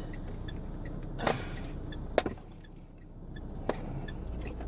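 A few sharp plastic clicks and a short rustle from the dashcam and its packaging being handled, over a steady low hum.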